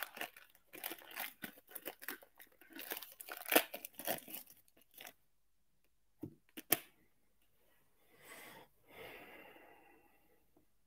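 Foil wrapper of a football trading-card pack being torn open and crinkled: about five seconds of dense crackling tearing. Then come two sharp clicks and, near the end, a soft rustle of the cards being handled.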